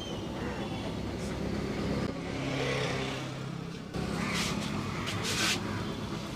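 Road traffic: a motor vehicle's engine running with a steady low hum, with a few short bursts of hissing noise about four to five seconds in.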